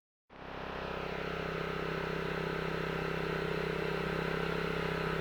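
Small Honda petrol engine driving a steel Davey water pump, running steadily at a constant speed. The sound cuts in abruptly just after the start.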